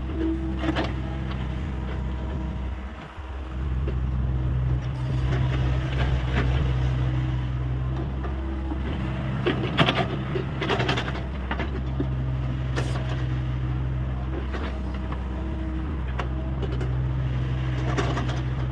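Hyundai 85A excavator's diesel engine running steadily under hydraulic load, its note shifting every few seconds as the load changes. Scattered clanks and knocks from the machine working, loudest about ten seconds in.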